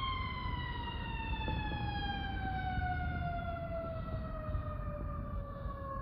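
Fire truck siren winding down: one long wail sliding slowly and steadily lower in pitch, to about half where it started, without rising again, over a low rumble.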